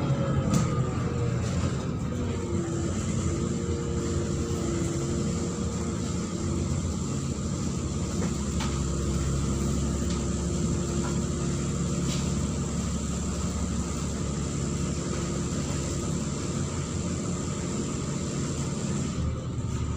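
Neman city bus driving, heard from inside the cabin: a steady diesel engine drone and road noise. The engine pitch falls in the first couple of seconds, then holds even.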